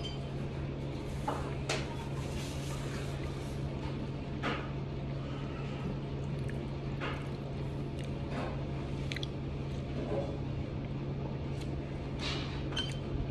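Steady low hum of the room with scattered light clicks and scrapes of a spoon against a ceramic soup bowl during eating.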